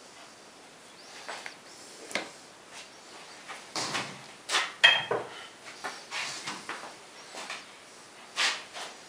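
Hand tools being handled and set down by the lathe: a scatter of short knocks and clatters, the loudest about four to five seconds in and another near the end.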